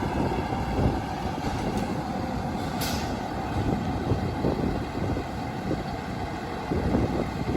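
Fire engine running, its engine rumbling steadily, with one short air-brake hiss about three seconds in.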